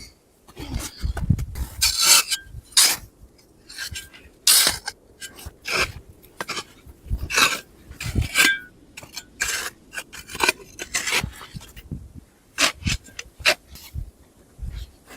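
Irregular scraping and rubbing strokes, each under half a second, about one or two a second, with a few dull low thuds about a second in.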